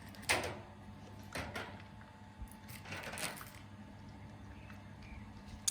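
A few brief rustles and clicks of a Kinder Surprise's plastic toy capsule and its contents being handled and opened.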